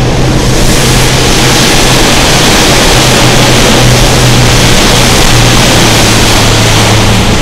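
A small boat's engine running steadily with a low hum, under a loud, continuous rushing hiss of water and air going past.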